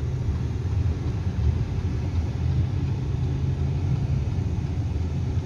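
Car driving along the road, heard from inside the cabin: a steady low rumble of engine and road noise.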